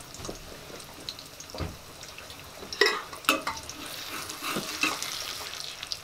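Eggs frying in a pan with a steady sizzle, and a few sharp clicks partway through.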